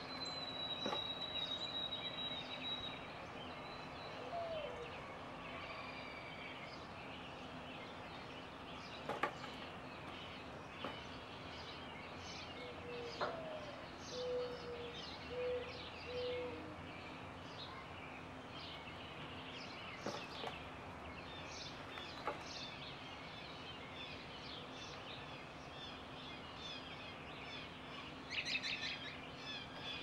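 Songbirds chirping and calling, with a long thin whistle at the start, a few low notes around the middle and a flurry of chirps near the end. A few sharp taps stand out, the loudest about nine seconds in, over a faint steady hum.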